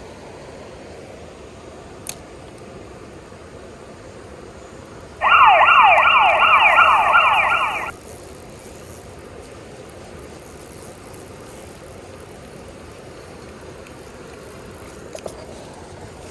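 A loud, siren-like electronic warble, a fast run of repeated falling pitch sweeps, starts abruptly about five seconds in and cuts off under three seconds later. Around it is a steady background hiss.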